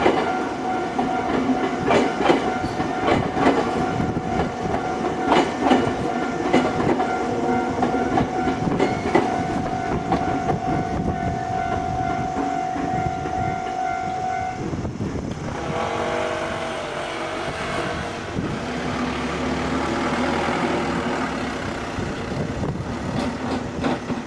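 Nankai Electric Railway train passing over a level crossing, its wheels clacking over the rail joints under a steady whine. The clacking ends about fifteen seconds in, and a lower, shifting mechanical sound carries on.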